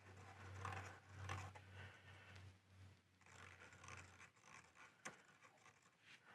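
Faint scratching of a marker marking two hole positions through a bracket onto the plastic bumper fascia, with a single light click about five seconds in.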